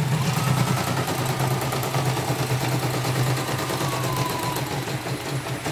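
Elnoss portable embroidery machine running and stitching, with a steady motor hum and fast, even needle ticking. Through the middle a faint whine slowly drops in pitch.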